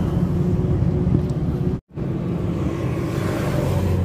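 Steady low outdoor rumble by a highway, broken by a moment of silence about two seconds in where the video cuts.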